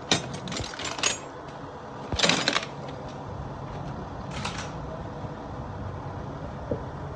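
Metal tools and parts clinking and knocking as they are handled, in three short clusters with the loudest in the middle, over a steady low background hum.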